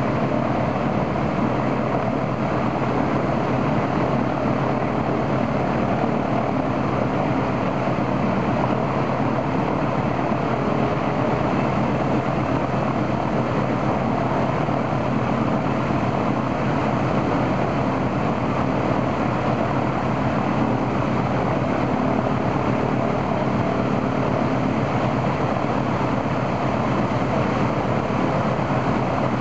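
Il-14's right-hand Shvetsov ASh-82T radial engine running steadily with its propeller turning, on a ground test run after the engine's oil cooler was replaced.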